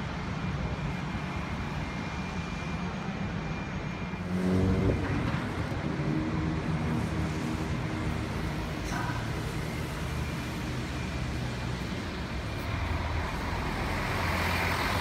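City street traffic noise, with a vehicle engine coming up about four seconds in and running steadily for several seconds before fading back into the traffic.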